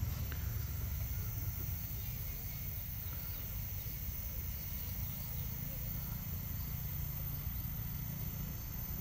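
Rural outdoor ambience: a low, fluctuating rumble of wind on the microphone under a steady high-pitched chirring of insects.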